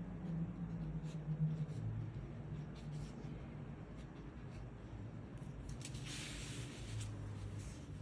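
Brush pen writing on paper: a string of short, light scratching strokes. About six seconds in comes a longer rustle as the sheet of paper is slid across the desk.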